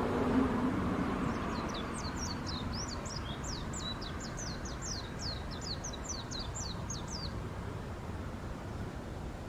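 A small bird singing a fast run of about two dozen short, high notes, each sliding steeply down in pitch, over a steady low rumble. The song starts about a second and a half in and stops a couple of seconds before the end.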